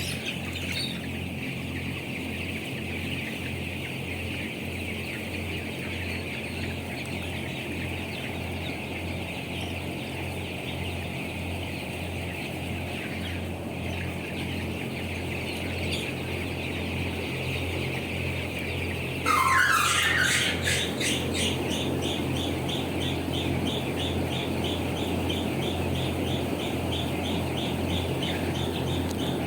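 A crowded flock of young birds calling continuously over a steady low electrical hum, most likely chickens in a poultry house. About 19 s in, a louder rising call breaks in, followed by rapid, evenly repeated chirping that continues.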